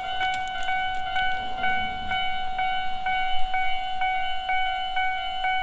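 Railway level-crossing warning alarm ringing in a steady, even rhythm of about two strikes a second, the signal that a train is approaching the crossing.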